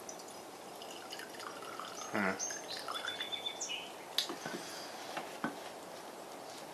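Fuel dripping and splashing into a cup as it drains from a small Briggs and Stratton engine's carburetor, with short drip tones and ticks and a louder pouring splash about two seconds in.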